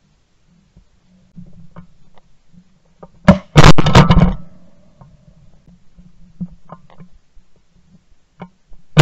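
Shotgun blast from a Benelli SBE3 semi-automatic shotgun, recorded from a camera mounted on the gun: a sharp crack and a loud report about three and a half seconds in as the duck is hit, and another shot starting right at the end. Faint clicks and a low rumble in between.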